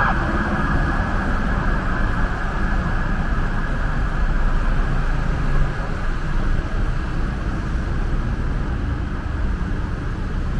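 Steady city road traffic noise: a low rumble of cars and engines passing on a busy road.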